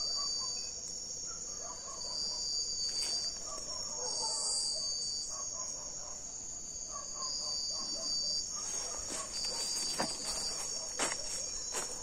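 Night-time insect chorus of crickets: steady high trills, one of them pulsing on and off at a slow even rhythm, with faint short chirping notes beneath. From about two-thirds of the way through come scattered footsteps crunching in forest leaf litter.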